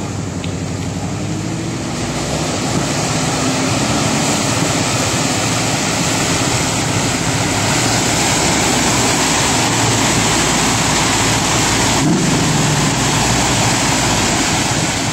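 Off-road truck engine working hard as it plows through a deep, muddy water hole, with water splashing and surging around it. The noise grows louder about two seconds in, and the engine pitch rises near the end.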